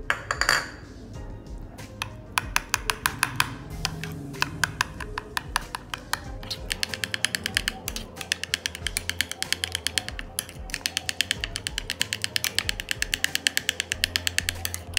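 Metal spoon clicking and scraping against a ceramic bowl while briskly stirring a thick mayonnaise-yogurt sauce. The clicks come quickly, about seven a second, and run almost without a break from about six seconds in.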